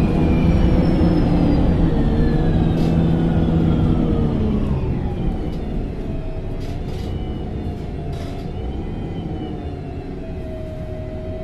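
MAN NG273T4 LPG articulated bus running, its engine and drivetrain whine falling steadily in pitch as the bus slows. It goes quieter about five seconds in and settles into a steady lower running sound, with a few light clicks or rattles.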